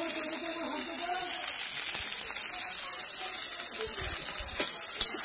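Oil sizzling steadily in a frying pan. A faint voice is heard in the first second or so, and two sharp clicks come near the end, the second one the loudest.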